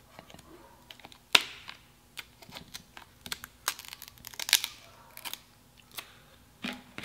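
Kitchen shears cutting through the shell of a boiled king crab leg: a series of sharp snips and crackles as the shell gives way.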